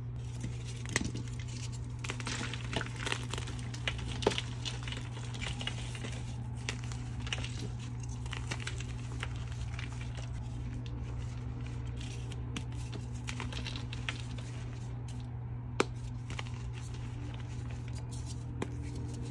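Hands crushing and crumbling blocks of dyed reformed gym chalk: a dry, continuous crunching and crackling as the chalk breaks up into powder, with a few sharp snaps as pieces break off.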